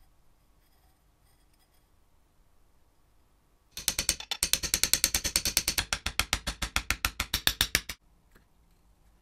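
Rapid, evenly spaced ratchet-like mechanical clicking, about ten clicks a second, starting a little before halfway and stopping abruptly after about four seconds.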